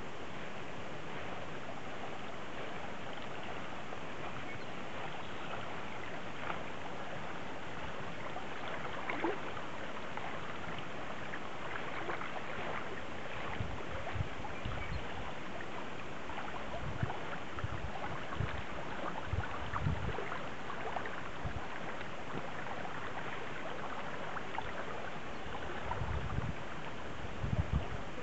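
A mountain creek flowing over shallow gravel riffles, a steady hiss of running water. From about halfway through, low rumbling bumps of wind buffeting the microphone come and go, loudest near the end.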